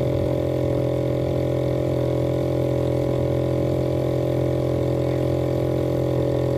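Small boat engine running steadily with the boat under way, an even drone with no change in speed.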